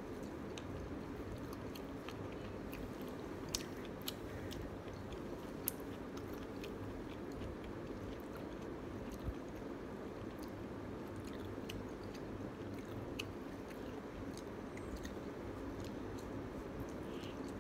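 Close-miked chewing and biting of pan pizza crust, with a few short crunchy clicks scattered through, over a steady low background hum.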